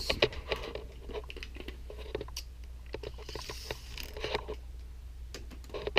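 Handling noise from RC snowcat models and their tracks being moved about: irregular clicks, knocks and light crunching of plastic parts, with a brief rustle about midway.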